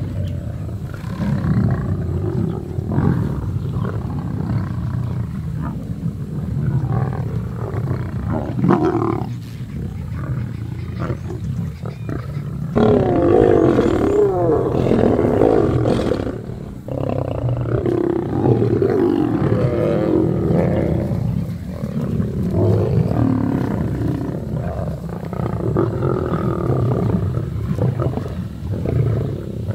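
Several lions growling as they fight among themselves over a freshly killed buffalo calf carcass, the growls getting louder about thirteen seconds in.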